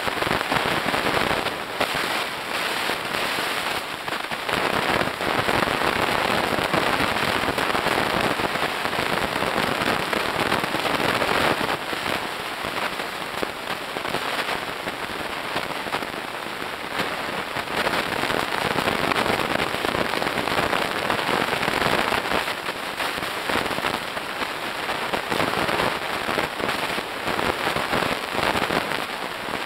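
Dense, steady underwater crackling of snapping shrimp on a coral reef, heard through the camera's housing: countless tiny clicks merging into a frying-like hiss.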